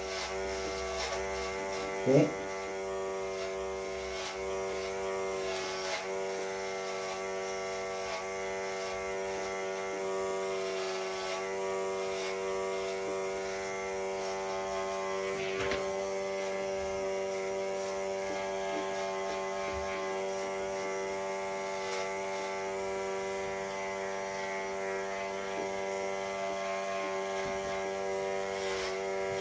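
Electric hair clipper buzzing steadily as it cuts hair at the side of the head.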